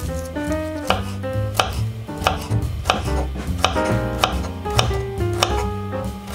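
Kitchen knife slicing garlic cloves on a wooden cutting board, with about nine evenly paced taps of the blade on the board, over background music.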